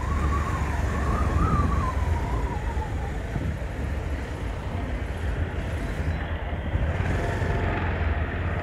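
Bajaj Pulsar 220 motorcycle's single-cylinder engine running at low speed in town traffic, a steady low rumble. A faint wavering high tone rises and falls over the first couple of seconds.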